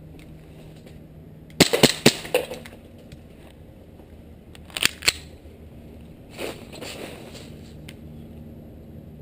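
Gas blowback airsoft pistol (a KJW Sig Sauer P226) firing sharp cracking shots: a quick run of three or four a little under two seconds in, two more around five seconds in, and a softer knock a little after six seconds.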